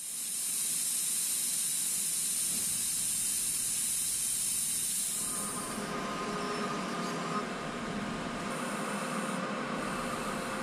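Manual lathe running with a delrin sprocket in the chuck. A strong steady hiss lasts about the first six seconds, then gives way to a lower hum with a faint steady whine.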